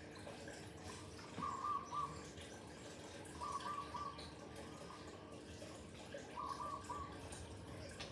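A bird calling: a short low call, three times, a few seconds apart, over a faint steady hum.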